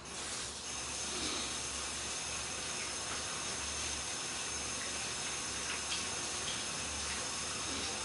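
Water running steadily from a kitchen tap into a sink, turned on abruptly right at the start, with a few faint clinks over it.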